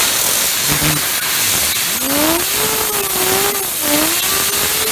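Loud steady hiss of compressed air blasting from an air compressor nozzle, cutting off suddenly after about five seconds. About two seconds in, a whirring tone rises and wavers as the duct-tape fidget spinner is driven round by the air jet.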